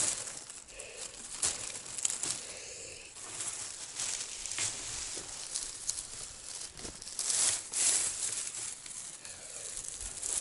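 Leafy willow branches rustling and crackling as they are handled, with irregular sharp snaps and clicks.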